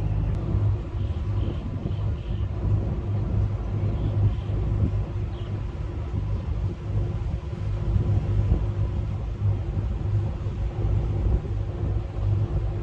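A boat's engine running under way: a steady low rumble with a hum.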